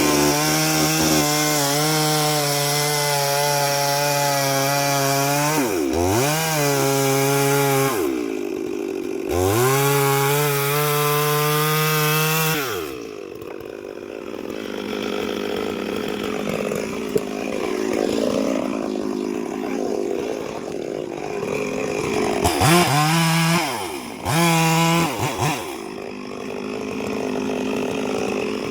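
Chainsaw engine running at full throttle with a steady high note, dipping briefly twice and easing off about 13 seconds in. It then runs quieter for several seconds and is revved up in two short bursts near the end.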